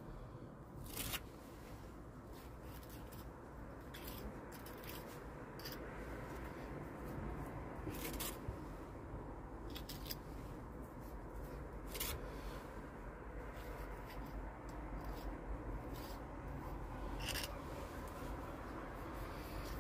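A hand tool scraping lime mortar in the joints between the cobbles and bricks: soft, scratchy scrapes with a handful of sharp clicks.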